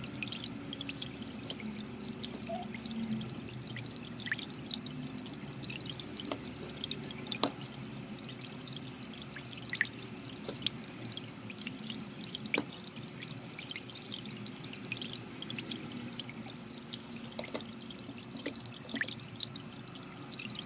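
Soft, calm background music with held tones, and scattered light clicks every second or two.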